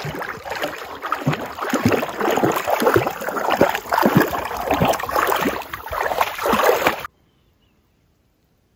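A golden retriever wading through shallow lake water, her legs sloshing and splashing in an irregular run of strokes that stops suddenly about seven seconds in.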